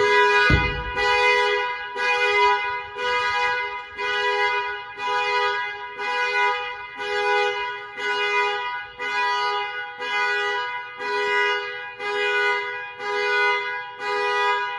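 2020 Nissan Rogue SV's car horn blaring in repeated pulses, about one a second: the factory anti-theft alarm going off because the locked car's door was opened without the key nearby. There is a low thud about half a second in.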